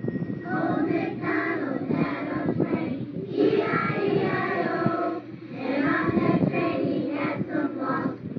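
A child singing, a continuous melodic line throughout.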